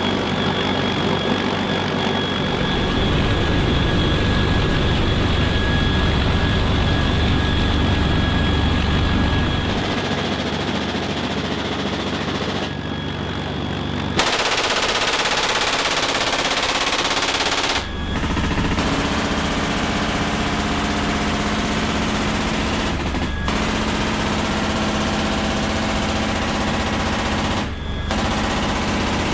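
GAU-21 .50-calibre machine gun firing long rapid bursts from a CH-53K King Stallion helicopter, over the steady whine of its turbine engines and the noise of its rotors. The sound changes abruptly several times.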